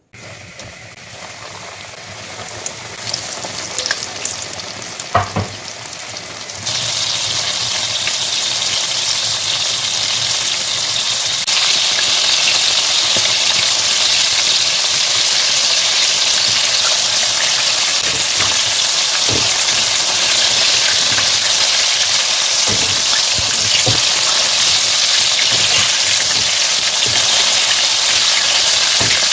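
Food sizzling in hot oil, a steady hiss that starts abruptly and grows louder about seven seconds in, with a few sharp knocks along the way.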